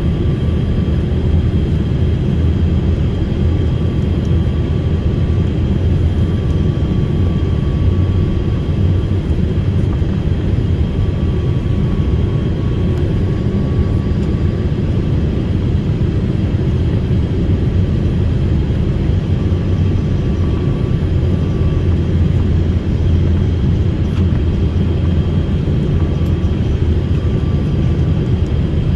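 Airliner cabin noise in flight: a steady loud low rumble of engines and rushing air heard from inside the passenger cabin, with a faint steady whine above it.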